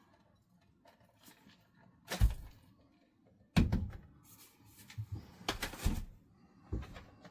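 Plastic knocks and clatter from a handheld cordless vacuum cleaner being handled, about five separate thunks spread across a few seconds.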